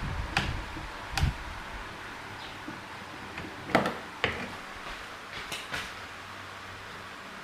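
About six sharp clicks and knocks, unevenly spaced, over a steady low hiss: tools and parts being handled during a repair.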